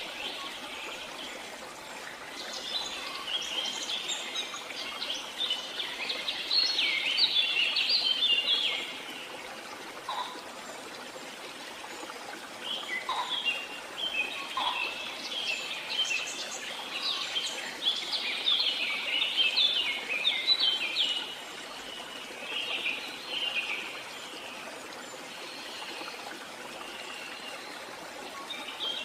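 Small birds chirping in quick clusters of high notes, in two long bouts and a shorter one near the end, over a steady soft hiss.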